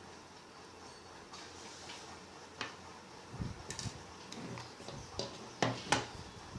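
Irregular clicks and soft knocks of objects being handled, sparse at first and busier from about halfway, with two sharp clicks near the end the loudest.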